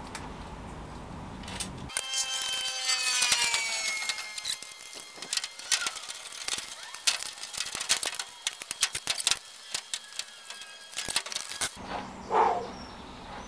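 Stainless-steel twin-wall flue pipe scraping and clinking against metal as it is fitted onto the pizza oven. About two seconds in comes a ringing scrape that falls in pitch, then a run of quick metallic clicks and rattles that stops suddenly near the end.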